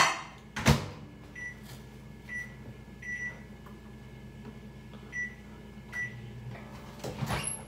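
Microwave oven heating butter to soften it: a clunk about a second in, a series of short high beeps, and a low steady hum throughout.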